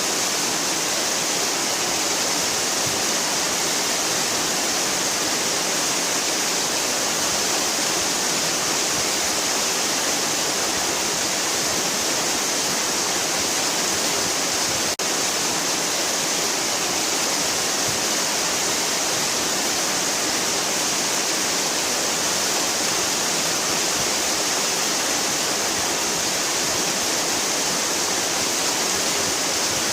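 Waterfall: a steady, unbroken rush of falling water, with a momentary dropout about halfway through.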